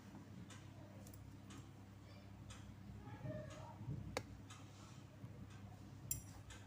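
Faint regular ticking about once a second over a low steady hum, with one sharper click a little after four seconds in.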